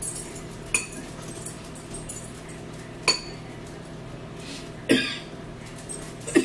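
Metal forks clinking against bowls as two people eat noodles: about four sharp clinks a second or two apart, over a steady low hum.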